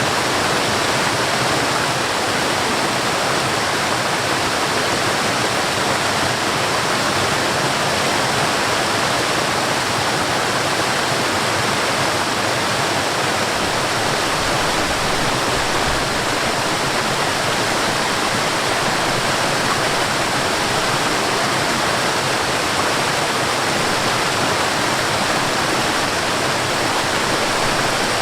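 Water rushing over a small waterfall and along a stream, a steady, even rush with no change.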